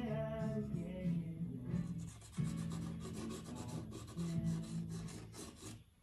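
Charcoal pencil scratching on paper in quick repeated strokes, over background music with sustained low notes; the strokes fade out near the end.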